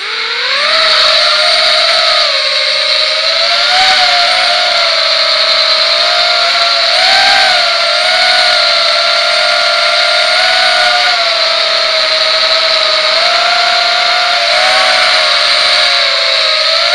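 Brushless motors and propellers of a QAV250 racing quadcopter, heard from on board: they spool up at the start, then run as a loud, steady whine whose pitch wavers up and down with the throttle.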